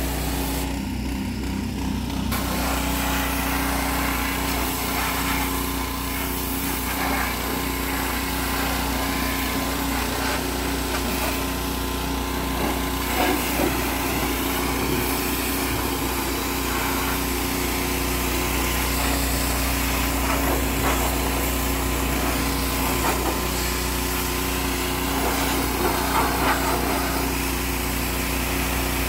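Pressure washer running steadily: a small-engine drone under the hiss of the wand's jet of water on a semi truck's cab, mud flap and fuel tank. The hiss briefly stops about a second in, then carries on.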